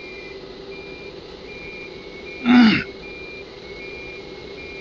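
Electronic beeper on the ATC CNC router sounding a repeating two-tone alarm: short high beeps about every three quarters of a second, alternating between two close pitches, over a steady machine hum. A brief loud voice-like sound falling in pitch cuts in about two and a half seconds in.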